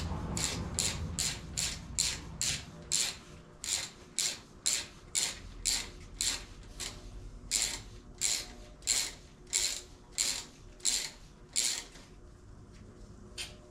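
Hand socket ratchet clicking as it is swung back and forth to turn a bolt, about two clicking strokes a second, stopping near the end.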